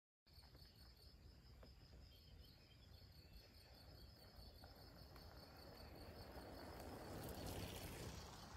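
Faint, steady pulsing chirp of crickets, starting a moment in after a brief silence. A soft rush of tyre and wind noise swells about seven to eight seconds in as two bicycles roll past close by.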